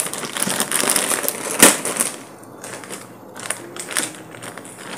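Thin plastic shopping bag rustling and crinkling as it is handled and opened to take out a plastic-wrapped pillow. There is a sharp crackle about a second and a half in, then quieter rustling.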